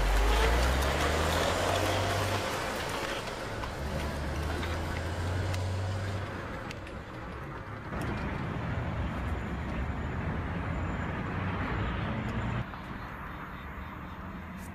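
A motor vehicle engine running, a low steady hum under a broad rushing noise. It is loudest at first, changes abruptly about eight seconds in, and drops suddenly near the end.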